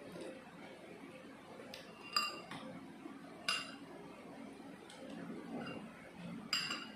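Metal spoon clinking against a bowl: three sharp ringing taps, the first about two seconds in and the last near the end.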